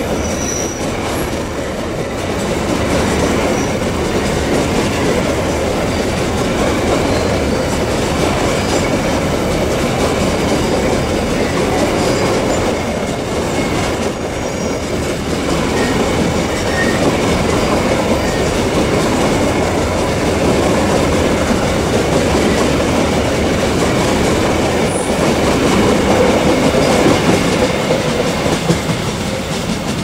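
Long train of steel coal hopper wagons rolling past: a steady rumble and clatter of wheels on rail joints, with a faint high wheel squeal on the curve.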